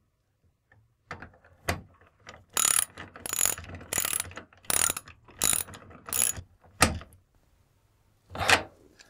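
Socket ratchet wrench clicking in about six short rasps, roughly one every 0.7 seconds, as a terminal nut on a breaker is tightened down. A sharp single click follows, then one more short rasp near the end.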